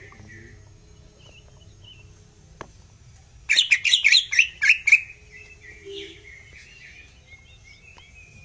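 Cucak ijo (green leafbird) calling. About halfway through comes a loud, rapid string of about ten sharp chirps, with softer twittering before and after it.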